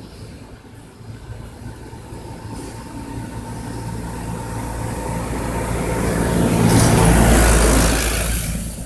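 A motor vehicle driving past unseen: engine hum and road noise build steadily, are loudest about seven to eight seconds in, then fade away quickly.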